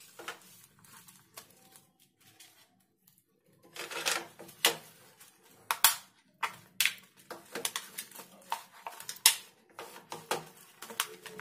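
Thin plastic chocolate mould clicking and crackling as set chocolates are pressed out of its cavities. It starts quiet, then about four seconds in comes a run of sharp, irregular clicks and taps.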